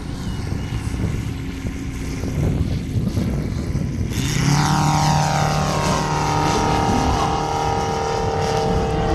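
Five-cylinder 13 cu in radial engine and propeller of a 1/3-scale Stearman RC biplane, faint at first, then loud from about four seconds in as it passes close, its pitch falling as it goes by.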